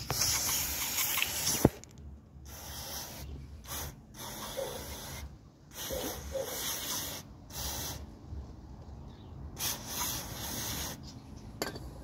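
Aerosol brake cleaner sprayed through a thin straw nozzle into a piston's ring grooves to flush dirt out of the rings: a long hiss at first, then about half a dozen shorter hissing bursts. A sharp click a little under two seconds in is the loudest sound.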